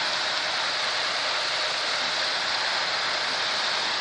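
Steady hiss of water jets spraying onto an aircraft fire-training mock-up.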